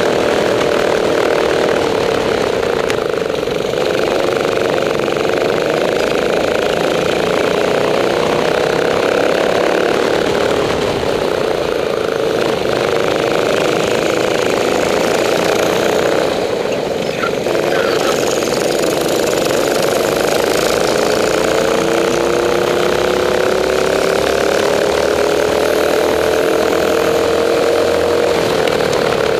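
Rental go-kart engine running hard, heard close up from the driver's seat. Its pitch rises and falls with the throttle, dips briefly a little past halfway, and climbs steadily near the end.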